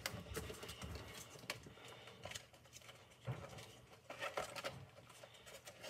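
Faint scattered clicks and rustling as a child moves about and handles a small object in his hands.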